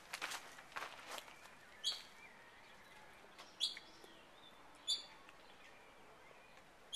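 A bird giving short, high single chirps, one every second or two, over quiet outdoor background, with a few faint scuffs in the first second.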